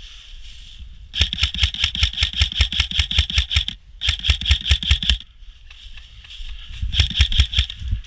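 Airsoft rifle firing three full-auto bursts, about ten shots a second: a long burst, a short one after a brief pause, and another short one near the end. It is suppressing fire.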